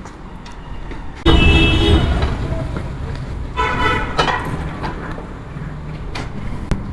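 A motor-driven tyre-changing machine starts running with a sudden loud rumble about a second in. Around the middle a vehicle horn honks briefly over the steady noise of street traffic.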